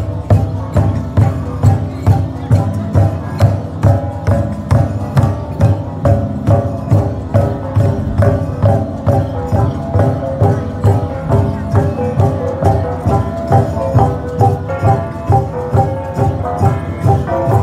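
Central Highlands cồng chiêng gong ensemble playing: several hanging gongs struck in a steady, repeating interlocking rhythm of about two to three strong beats a second, their pitched tones ringing on between strokes.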